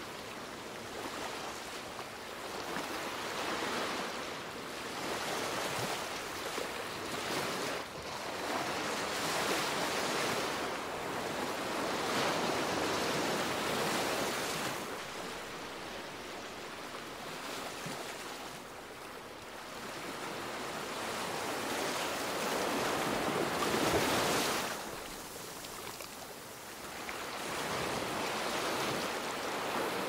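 Ocean waves surging and washing in, an unbroken rush of surf that swells and eases every few seconds, with one louder swell late on.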